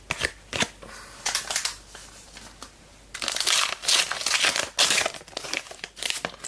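Trading-card pack wrapper crinkling and tearing as it is opened by hand: several short rustles, then a longer spell of crinkling about three seconds in.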